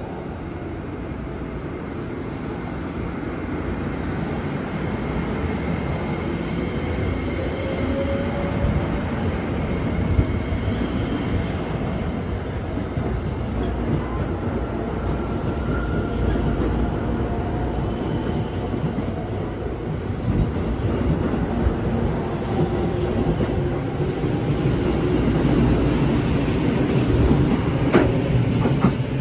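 Haruka limited express electric train pulling out and passing close by, the rumble of its wheels growing louder as it gathers speed, with faint motor whines rising in pitch and wheel clacks over the rail joints. A sharp click near the end.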